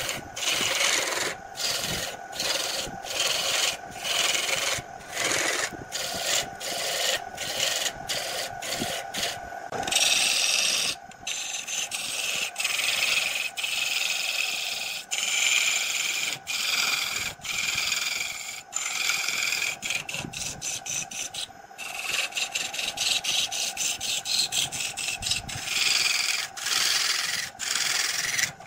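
Wood lathe turning a laminated wood blank while a gouge cuts it: a rasping, scraping hiss of shavings coming off, broken by many short gaps as the tool lifts and re-engages. A steady tone runs underneath.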